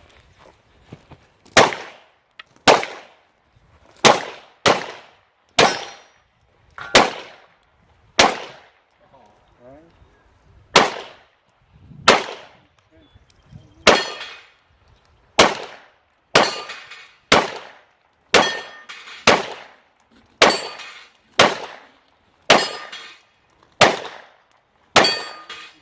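A handgun fired about twenty times in an action pistol course of fire: single shots and quick pairs at irregular intervals, each with a short ringing tail, with a brief pause about ten seconds in.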